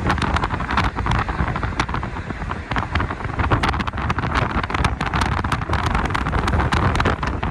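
Wind buffeting the microphone: a steady low rumble with frequent sharp crackles.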